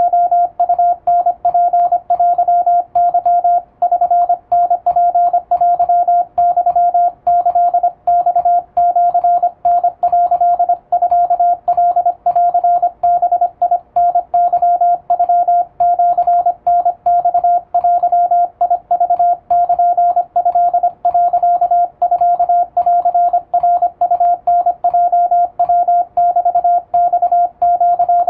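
Morse code sent with an electronic keyer (elekey): a single pitched sidetone beep keyed on and off in fast dots and dashes, with short gaps between characters, spelling out Japanese Wabun code plain text.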